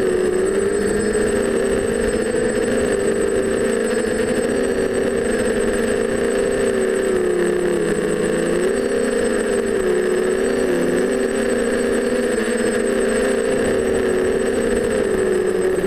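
TBS Discovery quadcopter's four DJI 920Kv brushless motors, spinning 9x5 Graupner E-props, whining steadily in flight, the pitch wavering gently up and down as the throttle shifts.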